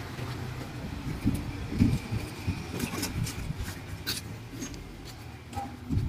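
Steady low rumble of street traffic, with a few short rustles and knocks as plastic shopping bags and sacks are handled in a motorcycle sidecar cart.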